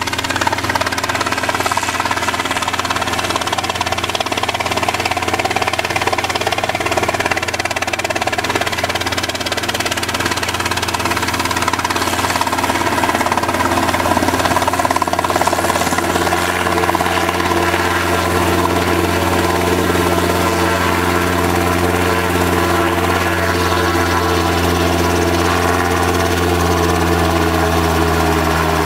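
Robinson R22 helicopter's piston engine and two-bladed main rotor running steadily at close range as it hovers low and sets down on its skids. The pitch drops slightly over the last few seconds.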